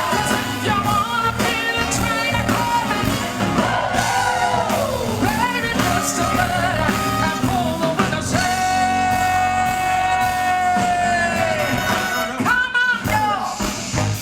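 A woman belting wordless vocal runs over a live band playing a rock-and-roll groove, holding one long high note for about three seconds past the middle.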